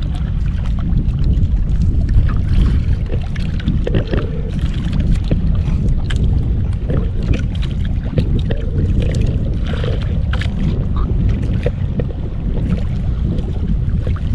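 Steady wind buffeting the microphone with water sloshing against a small wooden outrigger boat, and scattered light clicks and taps.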